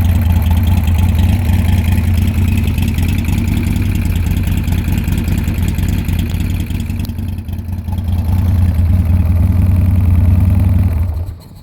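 2002 Buell X1 White Lightning's air-cooled V-twin engine idling with a steady low rumble, dipping briefly about seven seconds in, then shut off near the end.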